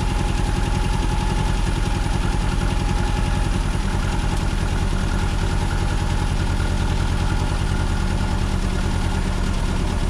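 Car engine running steadily with its throttle held open, being run to destruction, with water in it coming out past the valve cover. The firing pulses are fast and even, with no change in pitch.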